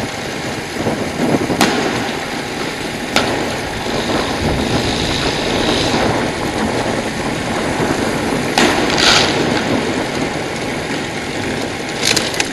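Engine and road noise of a moving vehicle, with wind rushing over the microphone and a few sharp knocks along the way.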